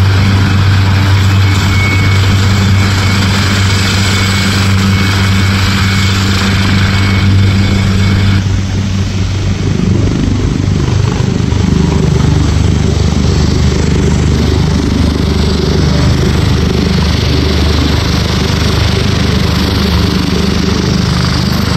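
AgustaWestland AW139 helicopter running on the ground: its twin Pratt & Whitney PT6C-67C turboshaft engines whine and the main rotor gives a steady low hum. About eight seconds in the high whine drops away, and a few seconds later the low hum settles slightly lower.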